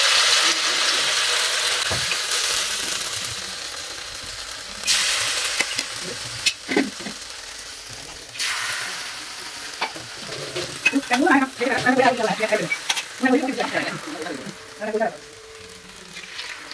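Batter-coated tapioca strips sizzling in hot oil in a frying pan. The hiss is loudest at the start, fades, and flares up again as more strips go in, about five and eight and a half seconds in, with a few sharp clicks along the way.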